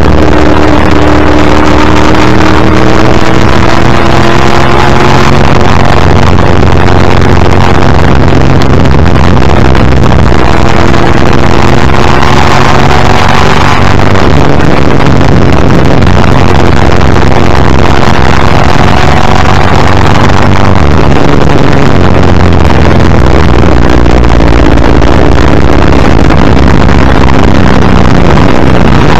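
Ford XD Group C Falcon's V8 racing engine at full throttle, heard from the front bumper with heavy wind and road rush, very loud throughout. The engine note climbs twice, then drops in pitch over the last few seconds as the car slows.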